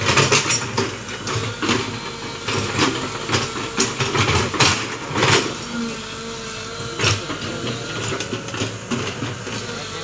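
Komatsu PC120 hydraulic excavator running as it digs, its diesel engine going steadily under repeated knocks and scrapes from the bucket working the soil.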